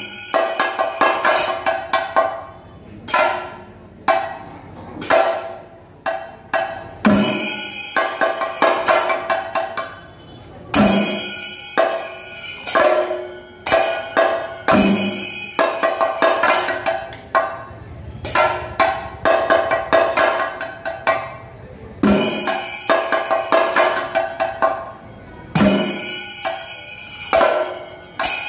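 Thayambaka ensemble: chenda drums beaten with sticks in fast, dense rolls, with ilathalam hand cymbals clashing in time. The pattern comes round in cycles of about four seconds, each opening with a heavy accented stroke.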